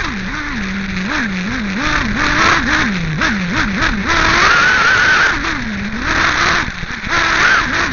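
Team Associated RC8B 1/8-scale nitro buggy's small glow engine, heard from on board, revving up and down in a string of quick throttle blips, then holding a long high pull about halfway through before dropping off. Sharp knocks and rattles from the car running over the dirt track come through with it.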